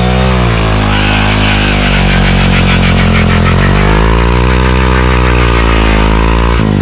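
Honda Monkey 125's single-cylinder engine revved hard and held high for a burnout. The revs sag and climb again midway, then drop off sharply near the end.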